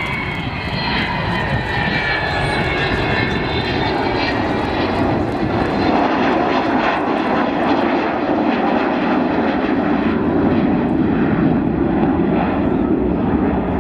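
Avro Vulcan bomber's four Rolls-Royce Olympus turbojet engines at display power as it banks overhead. A whine falls in pitch over the first few seconds, over a steady jet roar that grows slightly louder.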